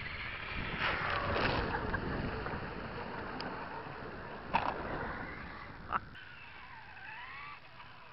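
Axial Yeti RC truck, running on a 2S battery, splashing through a shallow puddle with a dense rush of churned water, loudest about a second in. Two sharp knocks come at about four and a half and six seconds, and after them the sound drops to a quieter wash.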